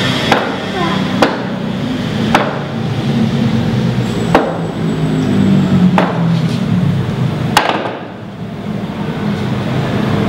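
A wooden chair knocked down repeatedly on a tiled floor: about six sharp knocks at uneven spacing, a second or two apart.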